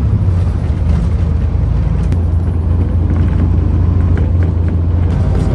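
City bus running, heard from inside the passenger cabin: a loud, steady low rumble of engine and road noise with a few light clicks and rattles, picked up by the phone's own microphone without the clip-on mic.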